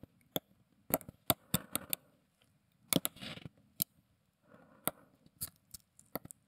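Steel watchmaker's tweezers clicking and tapping against the arbor and mainspring barrel of a watch as the arbor is wiggled into the centre of the wound mainspring, in irregular small metallic ticks with soft rustling between them.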